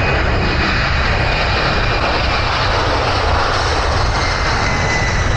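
Jet airliner passing low overhead: a loud, steady engine rush with a faint high whine that drifts slightly down in pitch.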